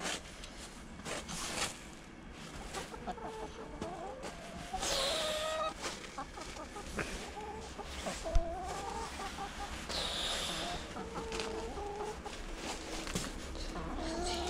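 Several hens clucking and giving short, drawn-out low calls from inside their coop. Two louder, rougher bursts come about five and ten seconds in, and a single sharp knock a little after eight seconds.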